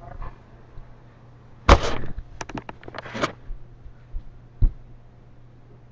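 Knocks and handling noise: a sharp knock about two seconds in, then a quick run of clicks and rustles, and a second single knock later on.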